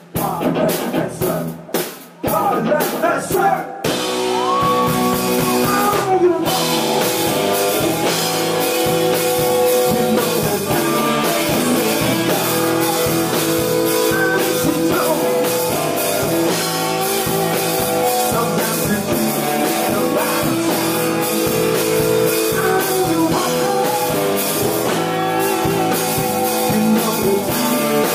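Live rock band: a few separate drum-kit hits open, then about four seconds in the full band comes in with electric guitars, drums and a male lead voice singing.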